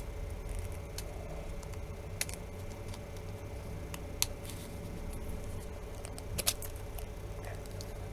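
A few short, sharp plastic clicks as a plastic pry tool works around the edge of a smartphone's housing, prising at the clips, over a steady low hum. The loudest click comes about six and a half seconds in.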